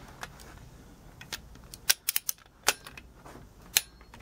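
Ratcheting torque wrench clicking irregularly as it tightens the ARP main-cap stud nuts on an engine block's main girdle, in stepped passes up to 80. The sharp clicks come mostly in the second half, several in quick succession about two seconds in and a single one near the end.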